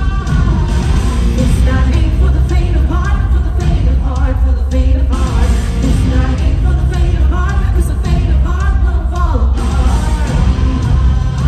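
Loud amplified rock music with a singer's voice over a heavy, steady bass and drum backing.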